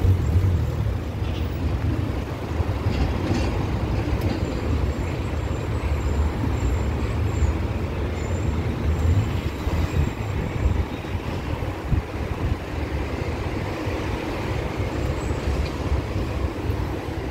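A car driving slowly, with a steady low engine and road rumble heard from inside the cabin.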